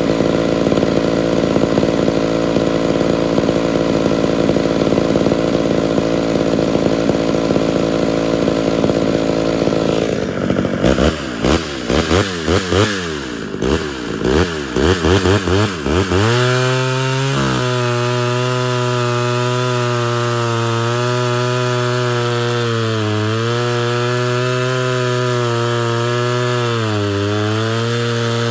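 Homelite two-stroke chainsaw running: a steady run for about ten seconds, then several quick throttle blips, then held at full throttle from about sixteen seconds in. Its pitch dips twice near the end as the chain loads in the log.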